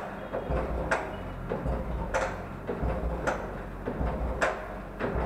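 Royal Enfield Classic 350 engine making a heavy metallic clack about once a second, each with a low rumble, as it is tried and fails to start: the 'khad khad' knocking that followed a bang inside the engine.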